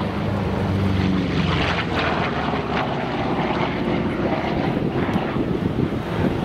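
Republic P-47 Thunderbolt's Pratt & Whitney R-2800 radial engine and propeller running at power as the fighter makes a low pass and banks overhead. The sound is continuous and loud, with no breaks.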